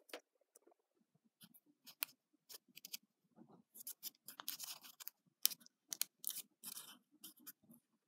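Small piece of origami paper being pinched, creased and handled between fingertips: a string of short, crisp crackles and rustles, busiest in the middle.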